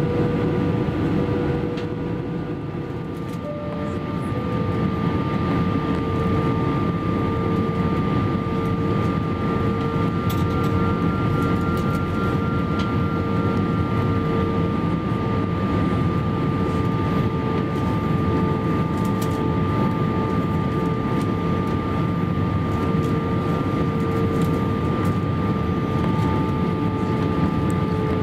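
Cabin noise inside an Airbus A321 in flight: the steady drone of its IAE V2500 engines and the rush of air past the fuselage, with a few steady whining tones. It is briefly a little quieter about three seconds in, then steady again.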